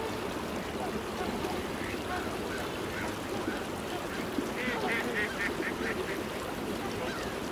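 A wintering flock of mallards and swans calls with scattered quacks and honks over a steady background rush. About five seconds in there is a quick run of about six quacks.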